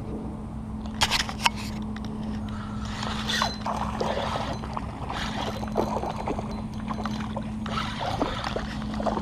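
Two sharp clicks about a second in, then rustling and scraping handling noises in several patches, over a steady low hum that stops near the end.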